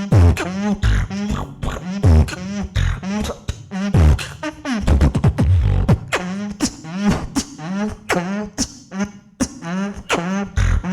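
Solo beatboxing: a steady beat with a deep kick about once a second and sharp snare and hi-hat clicks between, over a repeating hummed bass note. Around the middle there is a long falling bass sweep.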